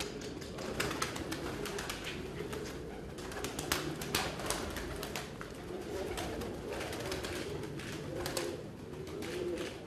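A flock of domestic pigeons cooing, a continuous wavering low warble, with frequent sharp clicks and taps throughout.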